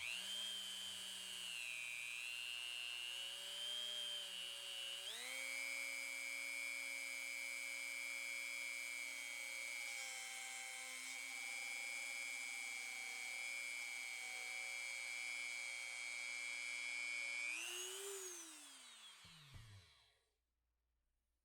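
Dremel rotary tool drilling out the inside of a cable gland box: a high whine whose pitch wavers under load for the first few seconds, then steadies at a higher pitch. Near the end it briefly rises, then spins down and stops.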